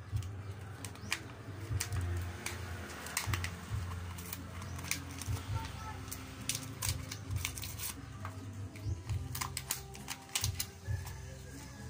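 Irregular clicks and crinkles of a small plastic gadget and its plastic packaging being handled and opened by hand, over a steady low hum.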